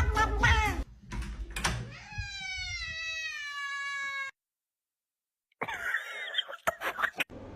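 Domestic cat meowing: one long, drawn-out meow of about two seconds, its pitch sinking slightly, cut off abruptly, then more wavering meows after a short break.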